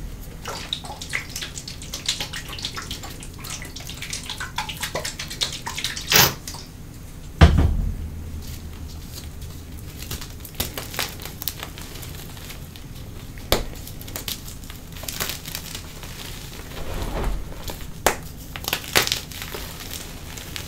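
Pasted gym chalk (a chalk core coated in chalk paste) being broken and crumbled in gloved hands, with a dense run of dry crunches and crackles as crumbs and powder fall onto a chalk pile. There is a sharp snap about six seconds in and a heavy thud about a second later.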